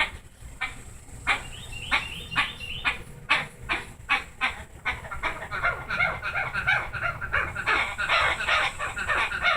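Pet parrot making mating vocalizations while being stroked on the back: a string of short repeated calls, about two or three a second, that turn into faster, continuous chattering about halfway through.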